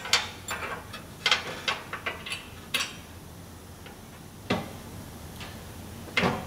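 Irregular small metallic clicks and taps of a washer and 8 mm cone lock nut being fitted by hand onto a hook bolt against a steel compressor guard. The two loudest clicks come about four and a half and six seconds in.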